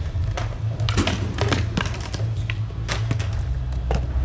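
Skateboards at a skatepark: a scatter of sharp clacks and taps from boards on concrete over a steady low rumble.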